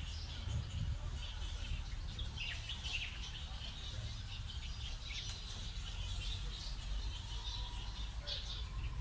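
Birds chirping, short falling chirps scattered through, over a steady low rumble.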